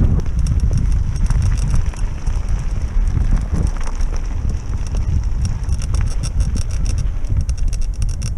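Wind buffeting a helmet-mounted camera's microphone over the rumble of mountain bike tyres rolling down dirt and gravel trails, with rapid small clicks and rattles from the bike.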